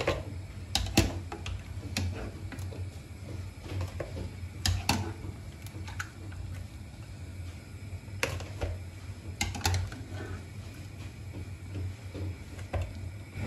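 Metal skimmer clinking on a pot and blanched tomatoes being lifted out of hot water and dropped into a plastic colander: scattered light knocks and clicks, often in pairs, over a steady low hum.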